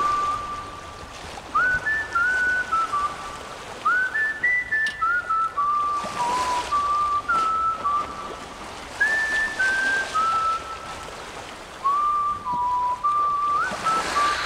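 A person whistling a slow tune: short phrases of a few held notes that step downward, each opening with a quick upward slide, over a steady hiss.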